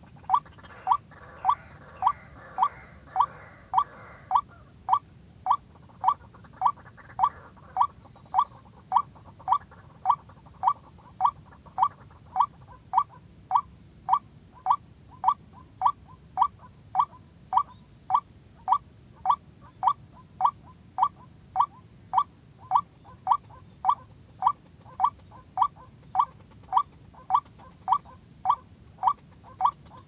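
White-breasted waterhen call: a short, sharp note repeated evenly, about one and a half times a second, without a break.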